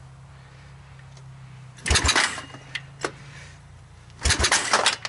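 Two yanks on the recoil pull-start of a 1986 Honda TRX200SX's single-cylinder four-stroke engine, about two seconds apart. Each one turns the engine over in a quick run of chuffs for about half a second, and it does not catch. The rope pulling back like that normally indicates ignition.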